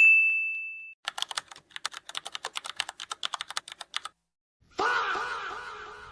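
A bell ding rings out and fades over about a second. It is followed by about three seconds of rapid computer-keyboard typing. Near the end comes a loud, drawn-out shouted "faaah" that fades away.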